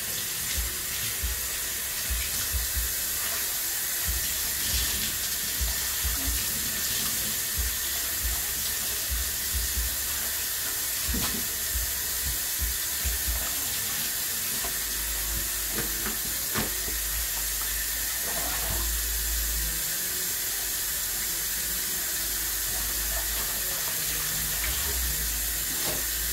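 Kitchen faucet running into a stainless steel sink as raw chicken is rinsed and handled under the stream, with a few light knocks against the sink.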